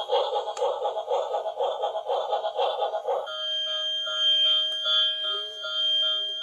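Tinny electronic sound effects from a toy emergency vehicle's sound chip: a fast pulsing pattern that switches about three seconds in to a steadier, chime-like tune of several tones repeating about twice a second.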